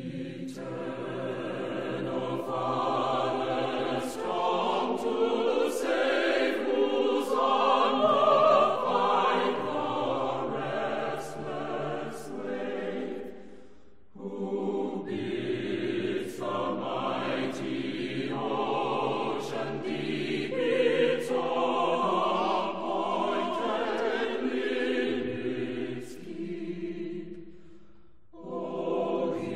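A choir singing slow, sustained choral music. The sound fades at a pause about halfway through and again near the end, then comes back in each time.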